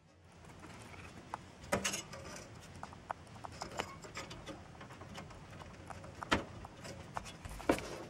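Irregular clicks and knocks of fingers handling a plastic CPU fan plug and the motherboard as the plug is pushed onto its header. The loudest knocks come about two seconds in, after six seconds, and near the end.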